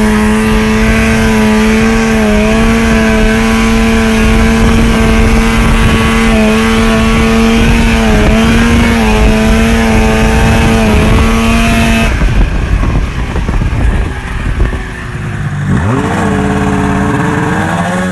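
Snowmobile engine running at a steady high speed under way, with a rushing noise of wind and track beneath it. About twelve seconds in, the engine note drops away and mostly the rushing is left. Near the end the engine revs up again with a rising whine.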